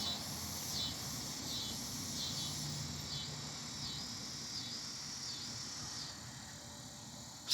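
Cicadas calling in chorus: a high buzzing that swells in repeated pulses about once a second, dying down about six seconds in.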